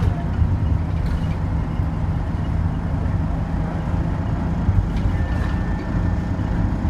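Optare Solo single-deck midibus under way, heard from inside the passenger saloon: the steady engine and road noise of the bus on the move.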